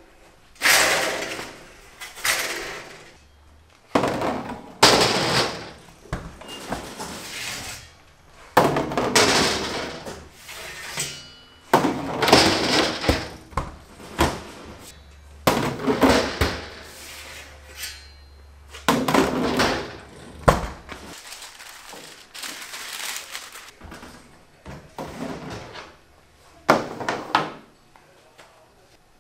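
Steel baking trays and a wheeled stainless-steel tray rack clanking and banging as they are handled, in a string of loud, ringing metal clatters every second or two.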